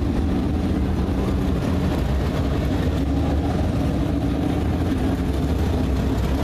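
Dirt-track race cars' V8 engines running steadily at low speed as the cars roll past close by, one after another.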